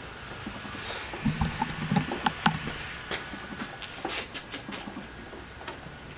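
Scattered clicks, taps and a few dull knocks from hand and tool work on a rear spoiler and the car's trunk lid, busiest in the first half.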